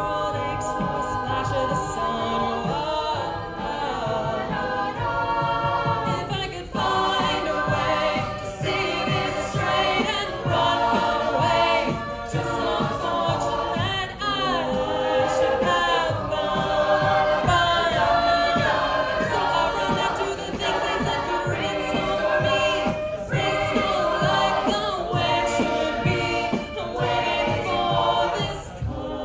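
A cappella group singing in several parts, with a steady beat running under the voices.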